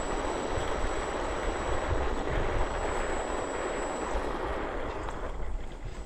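Electric motor and propeller of an E-flite Valiant RC plane running while it taxis, with wind rumbling on the onboard microphone. A thin, high steady whine runs through it and stops about four seconds in.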